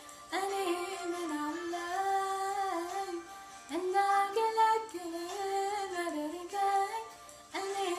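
A woman singing a mezmur, an Ethiopian hymn, in three melodic phrases with short breaks between them.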